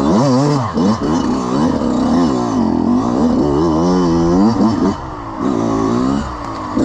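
Kawasaki KX100's two-stroke engine blipped up and down about once a second, the pitch rising and falling with each burst of throttle, and briefly quieter around five seconds in.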